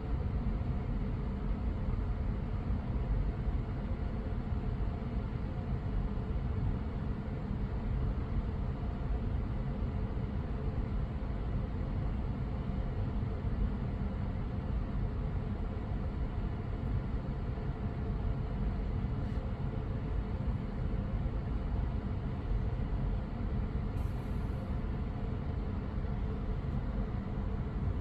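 Steady low rumble with a faint hum, unchanging and without distinct knocks or rattles.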